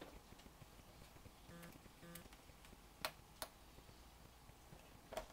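Near silence with a few faint, sharp clicks from small screws being backed out of the aluminium bottom panel of a 17-inch unibody MacBook Pro with a small Phillips screwdriver.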